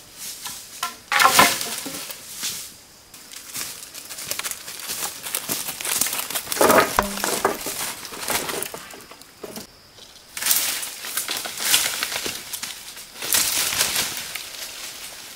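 Irregular bursts of rustling and crunching, like something being handled, each lasting about a second, with a brief pitched sound about seven seconds in.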